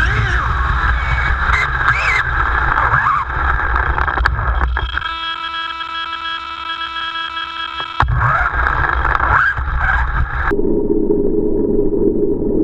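Electric whine of a Kyosho Lazer RC buggy's brushless motor, rising and falling with the throttle, over wind buffeting on the car-mounted camera's microphone. The whine holds a steady pitch for a few seconds in the middle, and about ten seconds in the sound cuts abruptly to a duller steady hum.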